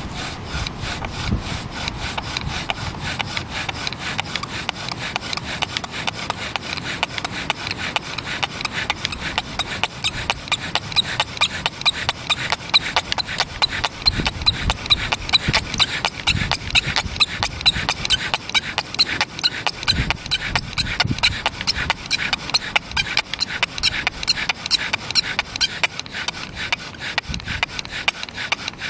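Bow drill at work: the wooden spindle spinning back and forth in the hearth board as the bow is drawn, making a rhythmic grinding rub with a high squeak on each quick, even stroke. This is the drilling stage that heats the wood to make an ember.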